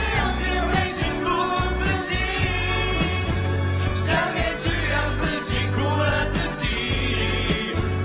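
Live pop band with drum kit, bass and guitars playing while several singers sing together.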